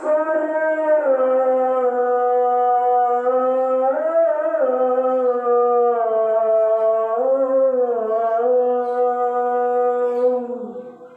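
A single voice chanting one long drawn-out note, wavering in pitch briefly about four and again about seven and a half seconds in, then fading away near the end.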